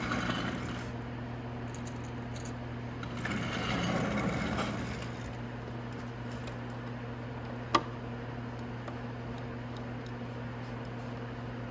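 Handling noises of a hand fitting a body-panel screw into a motorcycle fairing: a rustle about four seconds in and a single sharp click near eight seconds, over a steady low hum.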